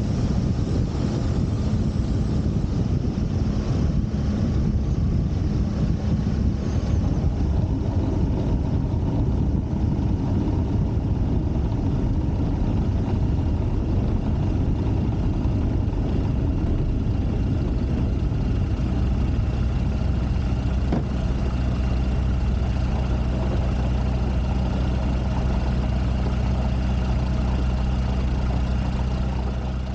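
Pipistrel Virus SW light aircraft's 80 hp Rotax 912 engine running at low power, mixed with wind and ground rumble as the plane rolls out on grass. From about two-thirds of the way through, the engine's steady idle tone stands out more clearly while it taxis.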